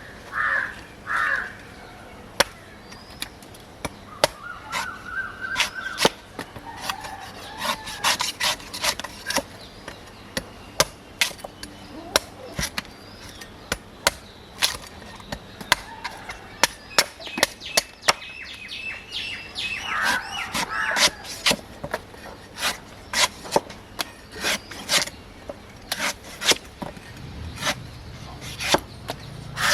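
Repeated sharp chops of a blade cutting into a coconut, irregular knocks every second or so. Crows caw near the start and again about twenty seconds in.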